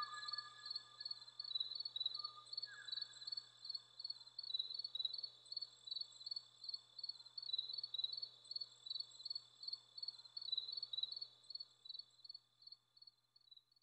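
Field recording of the last male Kauaʻi ʻōʻō: two faint, falling whistled notes in the first three seconds. Under them runs a steady insect chirping at about four pulses a second, which is the loudest sound and fades out near the end.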